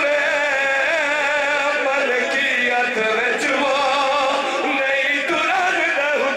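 Male voices singing a drawn-out devotional chant into a microphone, with long held notes that waver in pitch.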